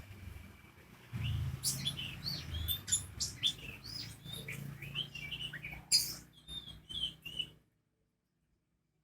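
Lovebird chattering: a rapid, broken run of short high chirps and sharp squeaks that cuts off suddenly near the end. It is a brief burst, not the long unbroken 'konslet' song, and the title counts it as a failed konslet.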